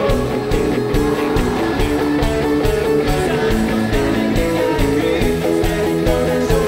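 Live rock band playing: guitars over drums keeping a steady beat.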